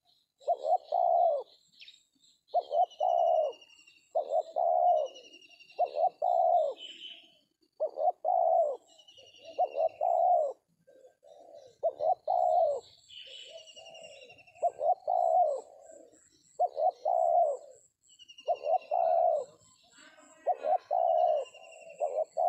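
Spotted doves cooing over and over, each phrase about a second long and one every one and a half to two seconds, with thin high falling trills of small birds above.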